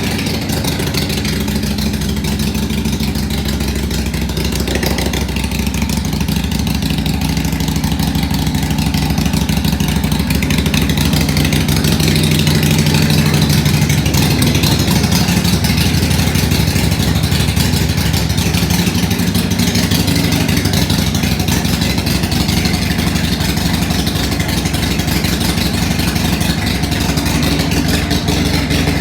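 2020 Harley-Davidson Iron 883's air-cooled V-twin running steadily at idle through aftermarket Radium drag-style exhaust pipes, a deep exhaust note that gets slightly louder for a few seconds midway.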